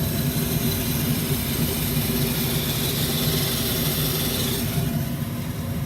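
Induced-draft inducer motor of an old ICP gas furnace running with a steady hum while the burners are lit; it doesn't sound very good, a hint of a worn inducer. A high hiss over the hum stops a little before the end.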